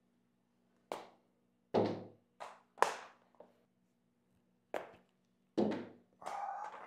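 Indoor golf chip shots: sharp knocks of a club striking the ball off a hitting mat and the ball bouncing on a hard floor, about seven knocks spread out at uneven gaps.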